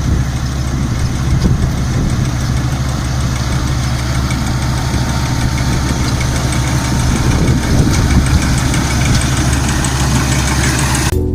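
Rice combine harvester running steadily in the paddy field: a loud, even engine drone under the rattle and rush of its cutting and threshing machinery.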